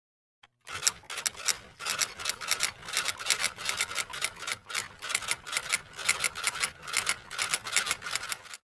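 Close handling noise of paper and plastic craft materials: rapid, irregular crinkling and clicking, about five a second, that cuts in shortly after the start and cuts off suddenly near the end.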